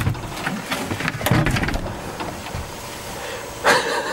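Knocks, scrapes and rattles as a caravan's fold-away dining table is wrestled into a bed, with a louder clatter near the end.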